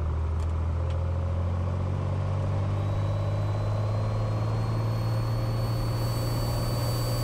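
Turbocharged six-cylinder Lycoming TIO-540 engine of a 2012 Cessna Turbo 182 Skylane running steadily at high power for a short-field takeoff, heard from inside the cabin. A faint high whine comes in about three seconds in and rises slowly.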